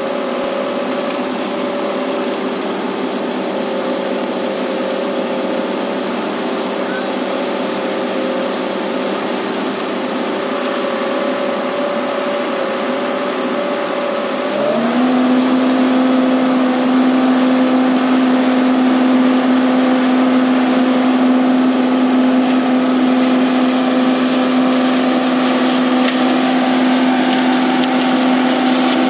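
Diesel engine of an Ajax Fiori Argo 2000 self-loading concrete mixer running steadily. About halfway through it speeds up, a quick rise in pitch, and then holds a higher, louder, even note.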